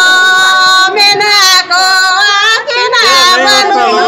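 Women singing together in high voices, with long held notes.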